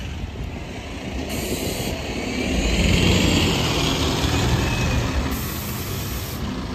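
Single-deck bus engine running as the bus drives slowly past close by on a turn, loudest about three seconds in, then easing as the bus pulls away.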